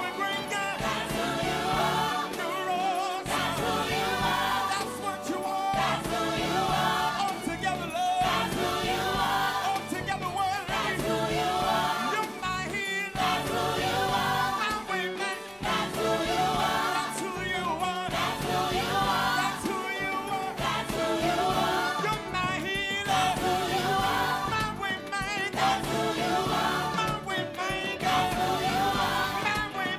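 Live gospel worship song: a lead singer and backing vocalists sing together on microphones, with a group of voices filling out the sound.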